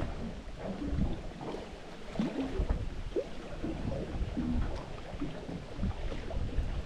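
Outdoor ambience around a small fishing boat on the water: an uneven low rumble of wind and water with irregular bumps, and scattered faint short squeaks and knocks.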